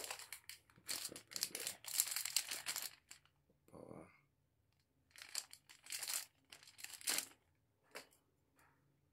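Plastic packaging being handled and pulled open: crinkling and tearing in bursts through the first three seconds and again about five to seven seconds in, then a couple of sharp clicks.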